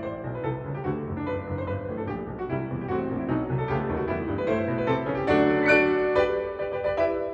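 Background piano music: a solo piano playing a quick run of notes, moving into fuller held chords about five seconds in.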